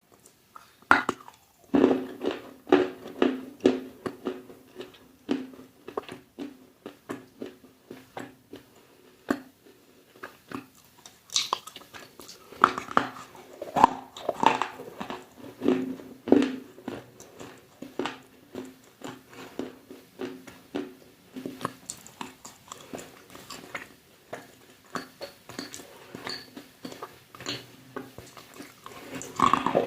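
Close-up chewing of hard, crunchy food: repeated sharp crunching bites, roughly one or two a second, with louder runs near the start and around the middle.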